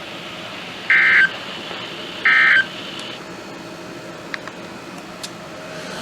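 Two short data bursts of an NOAA Weather Radio EAS end-of-message signal (SAME "NNNN"), buzzy two-tone digital chirps about a second and a half apart, signalling the end of the warning message. After them, faint radio hiss with a couple of small clicks.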